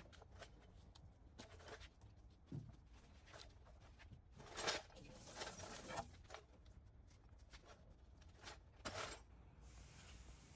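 Microfiber towel wiping polish residue off the freshly buffed painted bedside of a Chevrolet C10 pickup, heard as faint, irregular rubbing swishes.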